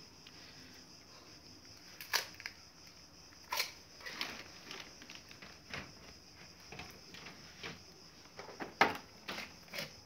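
Scattered sharp clicks and light knocks of handling, a few seconds apart with the loudest about nine seconds in, over a faint steady high hiss.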